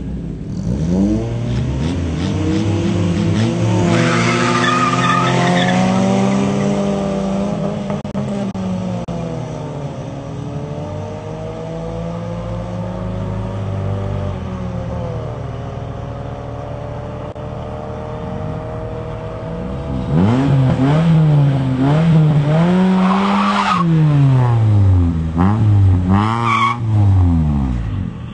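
Drag-racing car engines at full throttle: revving hard at the launch and climbing in pitch as they pull away down the quarter-mile strip. About twenty seconds in, loud engine revving returns, rising and falling several times.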